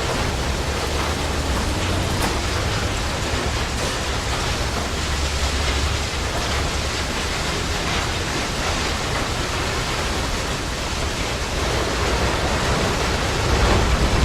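Auto repair shop ambience: a steady, even noisy wash over a low rumble, with no distinct tool strikes. It grows a little louder near the end.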